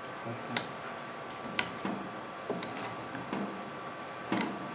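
Silicone spatula turning and fluffing cooked rice in a nonstick pan: light scraping with a few soft taps against the pan. A steady high-pitched whine runs underneath.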